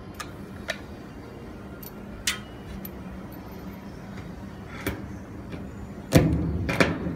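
Lazy-tong hand rivet gun setting pop rivets through a plastic vent into a steel shipping container wall: scattered sharp clicks and taps, then a louder burst of knocks and rattling about six seconds in as the tool is worked.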